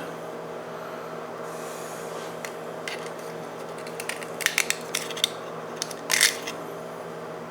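Scattered scrapes and clicks of a tool picking hard-water sediment, gritty like sand, out of an old gate valve's inlet, over a steady hum in the room.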